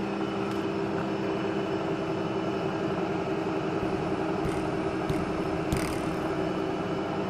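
Steady workshop machinery hum, holding a few even tones, with several light clicks and one sharper metallic knock in the second half.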